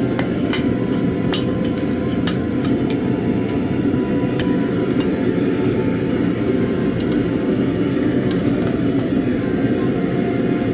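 A steady, low rushing noise with scattered light metallic clinks and ticks throughout.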